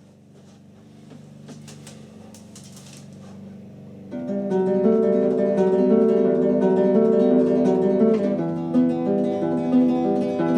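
Background music led by acoustic guitar, fading in quietly and coming in fully about four seconds in.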